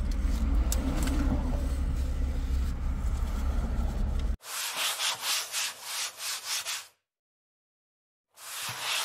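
A steady low car-cabin rumble with faint rustling of a paper sandwich wrapper. It cuts off abruptly and gives way to a scratchy rubbing sound effect in about three strokes a second, which stops for about a second and then starts again.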